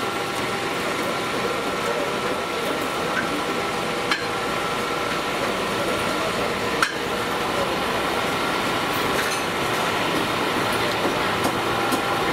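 Steady hum of a busy roast-meat street stall, with two sharp knocks about four and seven seconds in.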